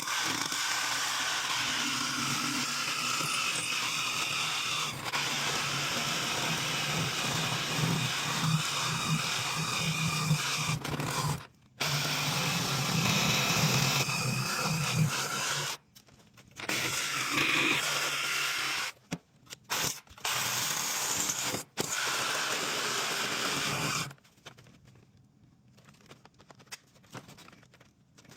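A small electric motor tool running in long runs with a steady hum, stopping and restarting several times after about twelve seconds, then cutting out a few seconds before the end.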